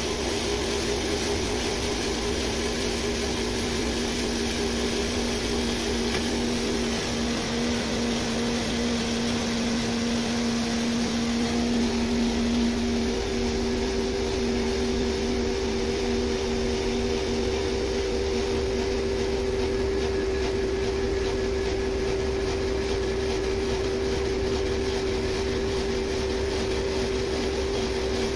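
Tyre buffing machine running: its belt-driven electric motor spins a truck tyre casing while the rasp grinds off the old rubber, the buffing stage of retreading. A steady machine whine over a grinding hiss, its pitch shifting slightly about halfway through.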